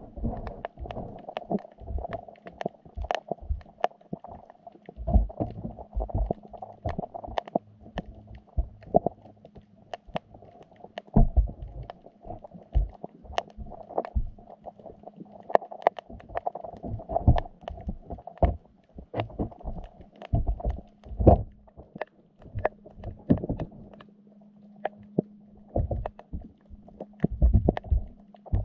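Underwater sound picked up by a GoPro in its waterproof housing, sitting inside a submerged wire fish trap: irregular sharp clicks and knocks with low muffled thuds, several in quick succession at times, over a steady low hum.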